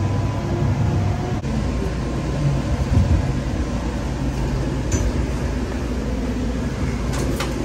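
Steady rumble of a light-rail train running, heard from inside the car, with a few light clicks near the end.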